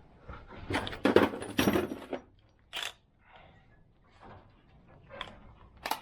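Metal tools and truck parts clanking and scraping during steering-gear work: a burst of clattering knocks about a second in, then a few single sharp knocks.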